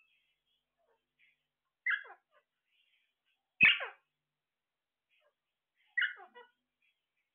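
Caged parakeets giving three short squawks about two seconds apart, each dropping steeply in pitch. The middle squawk is the loudest, with a low thump at its start.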